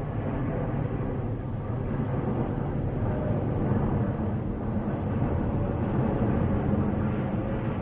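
Boeing 787-10 Dreamliner on final approach with landing gear down, its jet engines giving a steady low rumble at approach power as it passes low overhead.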